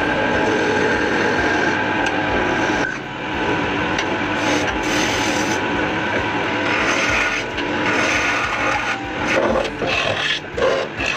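A tool working wood, a continuous rough sound that dips briefly about three seconds in and turns more broken near the end.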